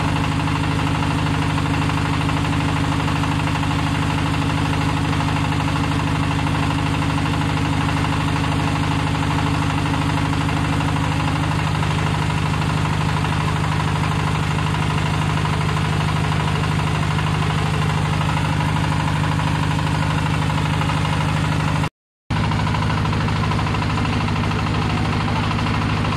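25 HP diesel engine of a small hydraulic water well drilling rig running steadily while it drills. The engine sound drops out for a split second about three-quarters of the way through.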